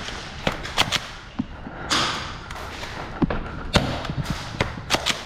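Airsoft gunfire during a game: about ten sharp cracks at irregular intervals, some close together in quick pairs.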